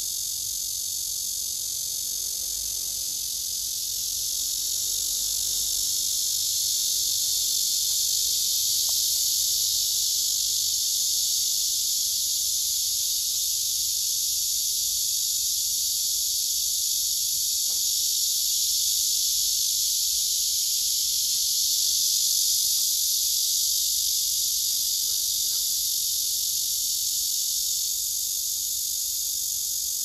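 Male cicadas singing: a continuous, steady high buzz that grows a little louder a few seconds in.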